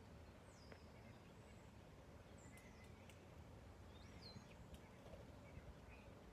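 Near silence with a few faint, scattered high bird calls, some sliding down in pitch, and a couple of soft clicks over a low background rumble.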